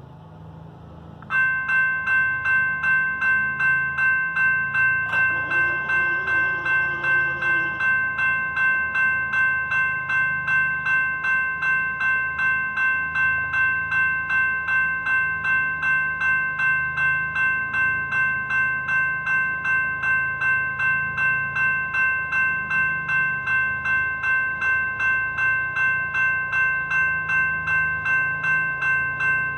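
GS Type 2 railroad crossing bell starting up about a second in and ringing steadily at about two strokes a second, the crossing signals activating for an approaching train. A brief whir from about five to eight seconds in as the crossing gates lower.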